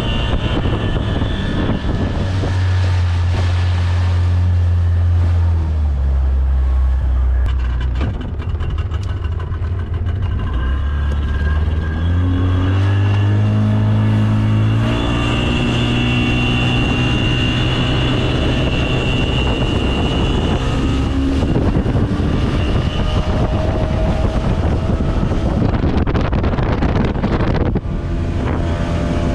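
Speedboat engine running hard under a constant noisy rush. Its pitch dips about a third of the way through, then climbs about halfway and holds higher as the throttle opens.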